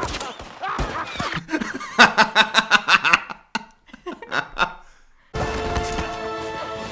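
A man and a woman laughing out loud together: a loud burst about two seconds in that trails off into scattered chuckles. Film soundtrack before it, and music with long held notes cutting in suddenly near the end.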